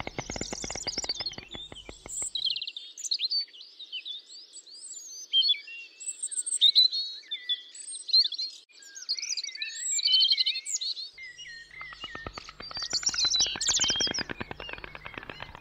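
Small songbirds chirping and twittering in quick, high, gliding notes. Over them a white stork clatters its bill in a rapid rattle of clicks, which stops about two seconds in and starts again about twelve seconds in.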